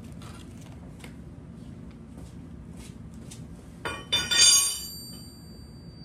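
Faint clinks of metal parts being handled, then about four seconds in a loud metallic clang, with a high ringing tone that lingers: metal tools and parts being handled while an alloy wheel is fitted onto the hub.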